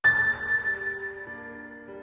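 Soft background music: a single high bell-like note is struck at the start and fades away over quiet held keyboard notes.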